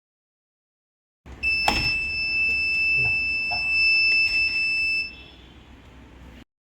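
A homemade door alarm circuit's buzzer sounding one steady, shrill high-pitched tone for about three and a half seconds, then cutting off suddenly, with a few short clicks while it sounds.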